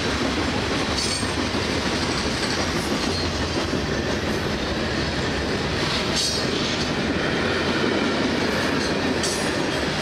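Freight train passing close by: a steady rumble and clatter of car wheels on the rail joints, with short high screeches about a second in, about six seconds in and near the end.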